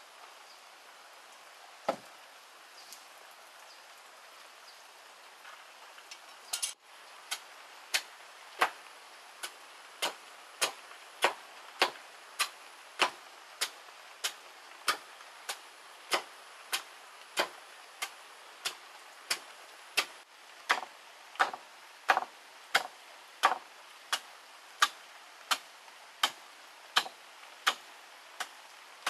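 A hatchet chopping a log into small chips on a wooden block: sharp, regular chops about 0.7 s apart, starting about seven seconds in, after a single thud about two seconds in.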